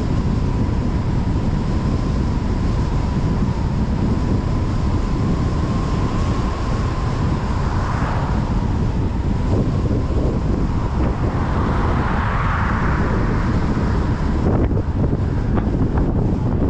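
Car driving along a highway: steady road and wind noise with a faint constant whine, and two brief swells of noise about eight and twelve seconds in. Near the end the hiss thins and a few light ticks come through.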